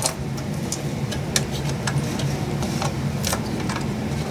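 Scattered light clicks and taps of small computer parts being handled and fitted onto a motherboard, over a steady low hum.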